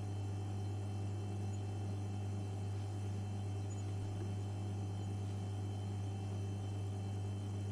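Continuous electrical hum and buzz: a steady deep hum with fainter buzzing tones above it and a light hiss, unchanging throughout.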